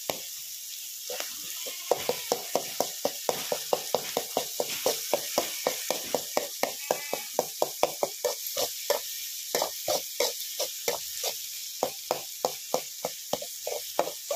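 Shallots and chicken blood frying with a steady sizzle in a metal pot. A metal spatula stirs them, knocking and scraping against the pot about three times a second from about two seconds in.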